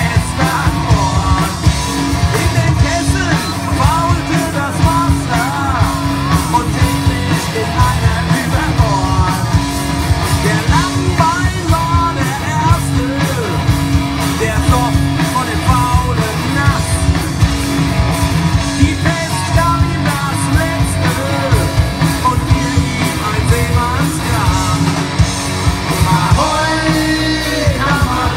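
Live rock band playing loudly, with a singer's voice and guitar over a steady beat.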